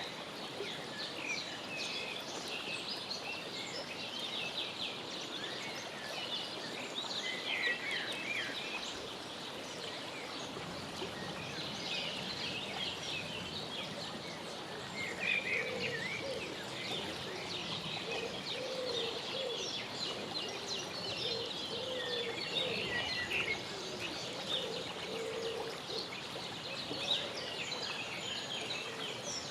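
Birds chirping and twittering throughout in many short, high calls, over a steady outdoor hiss. Through the middle of the stretch runs a series of short, lower-pitched calls.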